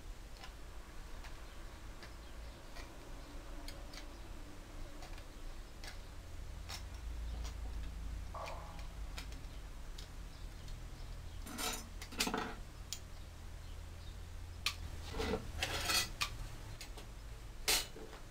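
Aviation snips cutting thin sheet steel: a run of sharp, irregular clicks as the jaws bite through the metal, with a few louder metal clatters in the second half.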